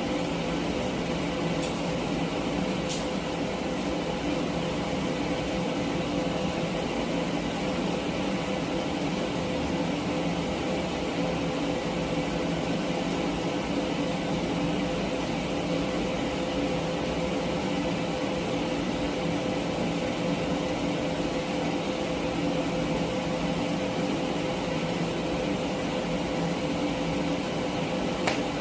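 TIG welding steel: a steady, even hum and hiss from the welder and arc, with a few short clicks early on and one near the end.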